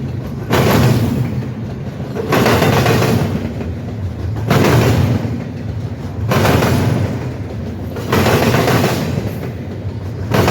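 Train wheels slamming over a rail diamond crossing as the cars roll through, a heavy burst of clatter about every two seconds, one burst per passing car joint.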